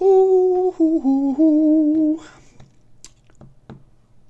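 A voice humming a short tune of a few held notes that step down in pitch, the last one wavering, lasting about two seconds.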